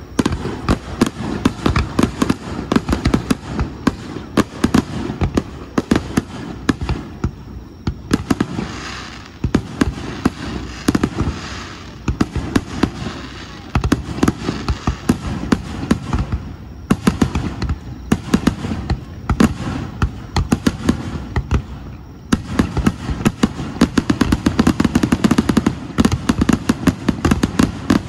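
Fireworks display: a continuous barrage of aerial shells bursting in rapid succession, dense bangs and crackling that thin out briefly a few times before picking up again.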